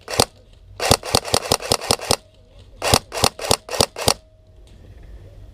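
Airsoft guns firing in rapid strings of sharp cracks, about eight shots a second, in three bursts: a short one at the start, then two of about a second each.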